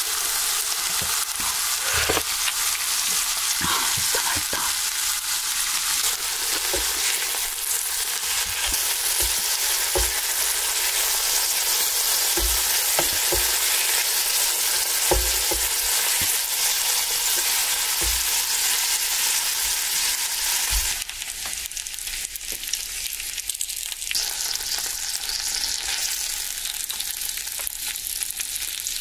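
Slices of pork belly sizzling on a hot griddle: a steady, high hiss of fat frying, with occasional light knocks. About two-thirds of the way through, the sizzle drops to a quieter level.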